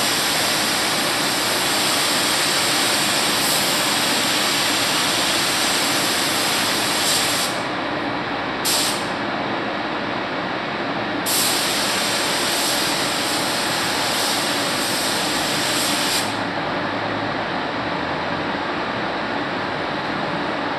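Steady fan-like air noise, with the high hiss of a compressed-air paint spray gun switching on and off over it as the trigger is pulled: the hiss stops about seven seconds in, gives one short burst, runs again from about eleven seconds and stops about sixteen seconds in.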